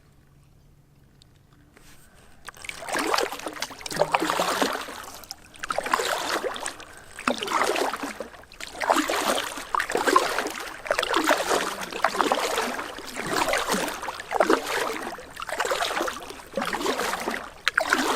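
Paddle strokes in calm water from a small paddled boat: after a quiet start, a steady rhythm of swishing, dripping strokes about every one and a half seconds.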